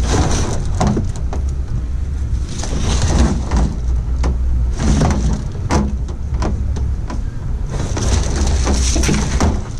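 Irregular knocks, scrapes and rustling from a blue plastic trash can and its black plastic liner bag being tipped and handled, over a steady low rumble.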